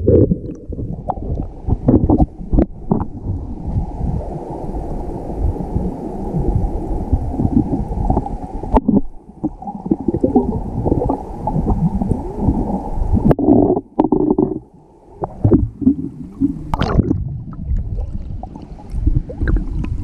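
Muffled underwater sound of a fast-flowing river stream, picked up by a submerged GoPro in its waterproof housing: a low, steady rushing and gurgling of the current with occasional sharp knocks.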